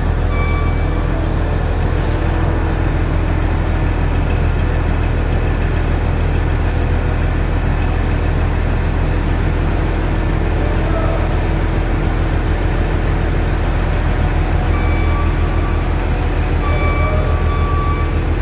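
Large diesel forklift's engine running steadily with a deep, even drone. Short electronic warning beeps sound briefly about a second in and again several times in the last few seconds.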